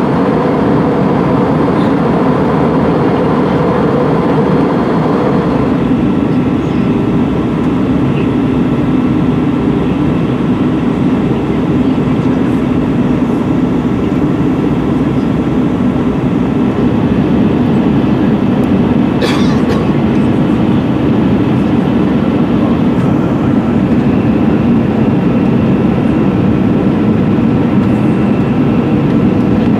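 Steady cabin noise of an Airbus A320-200 jetliner in descent, heard from a window seat over the wing: the rush of the engine and airflow, with a faint steady whine. A brief click sounds about two-thirds through.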